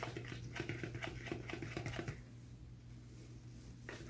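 Wire balloon whisk stirring flour and milk batter in a stainless steel bowl, its wires ticking and scraping against the metal in quick light clicks. The clicking stops about two seconds in, with one more click near the end.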